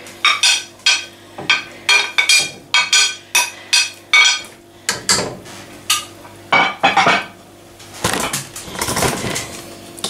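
Repeated sharp, ringing clinks, about two a second, of a knife and chopping board knocking against the rim of a metal stock pot as diced potatoes and ham are scraped in. Near the end, a slotted spoon stirring through the broth.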